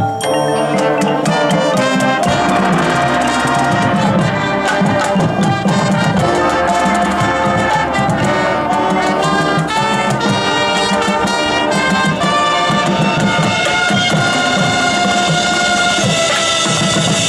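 Marching band playing loudly: massed brass (trumpets and trombones) holding full chords over percussion.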